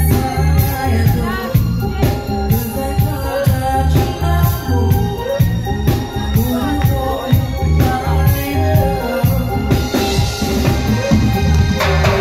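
Live reggae band playing, with heavy bass and drums on a steady beat and a female lead voice singing over them.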